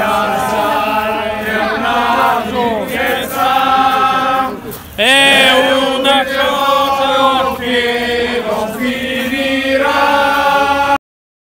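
A group of men singing together in chorus, holding long notes; after a short dip about five seconds in, a loud new phrase starts with a rising swoop. The sound cuts off abruptly shortly before the end.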